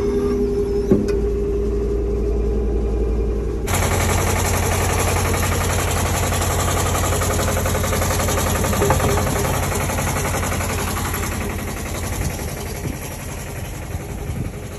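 An engine running steadily at idle, a constant mechanical hum. About four seconds in the sound changes abruptly to a louder, fuller steady run with a deeper hum.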